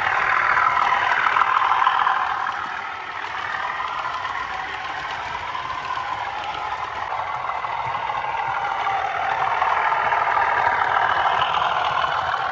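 Bachmann Class 37 model locomotive's DCC sound decoder playing the English Electric diesel engine sound through its small speaker, thin with little bass. It is louder for the first two seconds, eases back around three seconds in, and builds again near the end.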